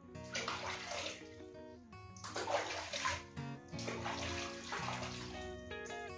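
Water being splashed and scooped over a cat in a plastic basin during its bath, in three bursts a second or two long, with background music throughout.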